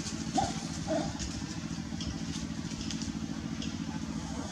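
An engine running at a steady idle, with two brief higher calls about half a second and a second in.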